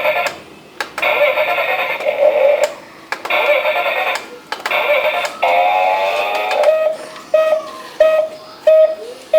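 Electronic music of synthesized tones that stop and start abruptly; in the second half a short beep-like note repeats about every 0.6 s.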